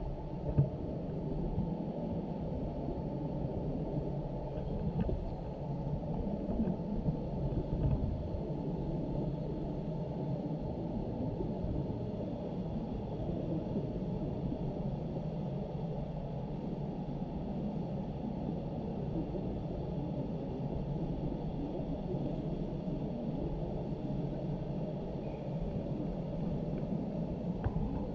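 Steady, heavily muffled low rumble with no clear sounds standing out above it, typical of a faulty recording. A brief thump comes about half a second in.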